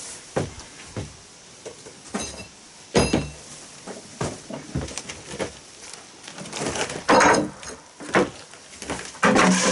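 Irregular thumps, knocks and scrapes of work inside a tented trailer: boots on its plank floor and pieces of concrete slab being shifted. A sharp knock about three seconds in, and longer, louder scraping thumps about seven seconds in and near the end.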